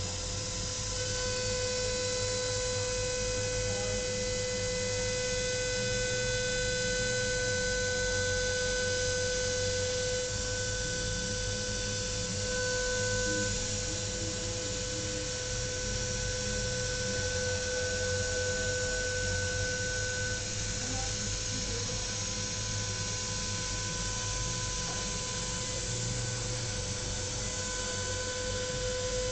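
CNC machine spindle milling 10 mm aluminium: a steady high-pitched whine of several held tones over a continuous cutting hiss.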